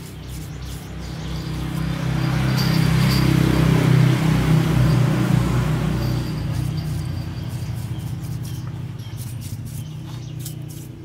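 A motor vehicle engine running at a steady pitch, growing louder over the first few seconds and then slowly fading, with birds chirping faintly.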